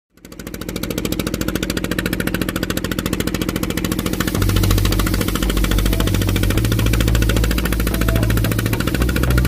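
An engine running steadily with a fast, even chug. About four seconds in, music with a deep bass line that steps between notes comes in over it.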